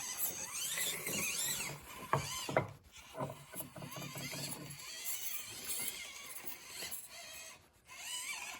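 SCX24 micro RC crawler's Barrage motor and geartrain whining, the pitch gliding up and down as the throttle is worked. A couple of sharp knocks come about two seconds in, as it crawls over the course.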